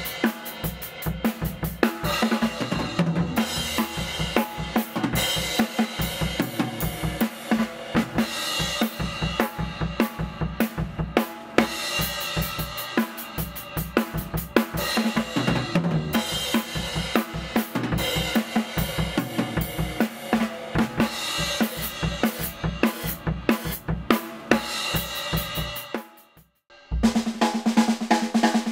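A drum kit being played: a dense run of fast strokes with cymbals ringing over them. It breaks off for a moment near the end, then the playing starts again.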